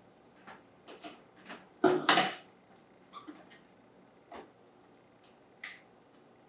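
Scattered light taps and clicks of sliced beets being dropped through a plastic canning funnel into a glass mason jar, with two sharper knocks about two seconds in.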